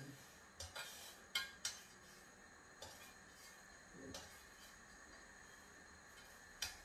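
A few light, separate clinks and taps of kitchen utensils on kitchenware, spaced irregularly, most of them in the first two seconds and one more near the end.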